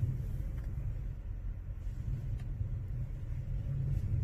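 Semi truck's diesel engine idling, heard inside the cab as a steady low rumble, with a couple of faint ticks.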